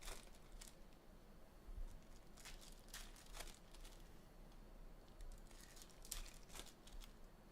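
Faint crinkling and rustling of foil trading card pack wrappers being torn open, with cards handled, in scattered short bursts.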